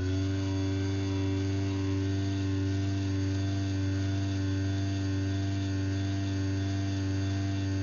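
Craftsman belt-drive garage door opener running after a wall-button press: its motor gives a steady, even hum with several clear tones.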